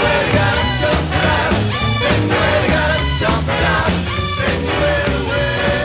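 Loud music with a steady beat.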